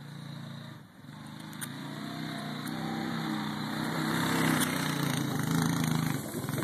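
Four-wheeler ATV engine running as it tows a person on a sled across grass, growing louder from about a second in as it comes close and passes.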